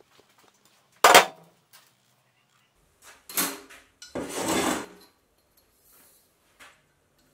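Steel tubes handled on a workbench top: a sharp metal clank about a second in, then a tube knocking down and rolling across the bench for under a second, with a faint click near the end.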